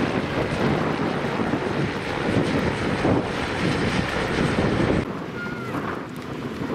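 Two helicopters flying past low, their engines and rotors making a heavy, steady noise mixed with wind on the microphone. About five seconds in the sound cuts away abruptly to quieter wind noise.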